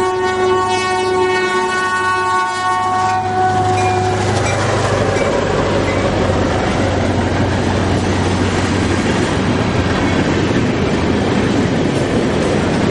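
Freight train's air horn sounding a long steady blast for the grade crossing, cutting off about three and a half seconds in as the locomotive reaches the crossing. Then the loud rumble and clatter of the freight cars' wheels rolling past over the rails.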